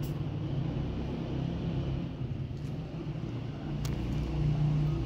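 Steady low engine rumble, with a short sharp click about four seconds in.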